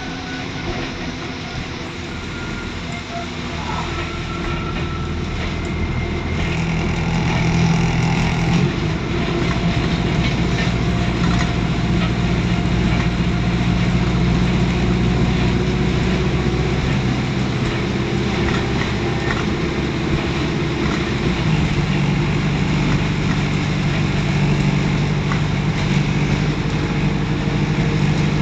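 Diesel engine of an ADL Enviro400 double-decker bus running while under way. Its note grows louder and steps up about seven seconds in, then shifts again around three-quarters of the way through.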